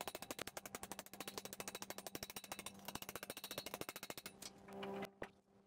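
Small hammer tapping rapidly on a sheet-metal blower housing plate held on an anvil, about eight light, even strikes a second. The tapping stops about four seconds in.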